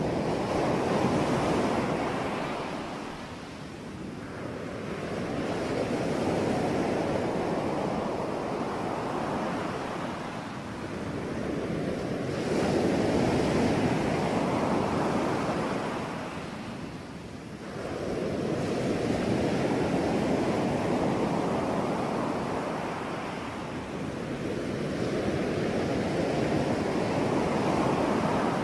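Ocean waves breaking and washing ashore in slow, rolling surges. Each swell builds and fades, about every six to seven seconds.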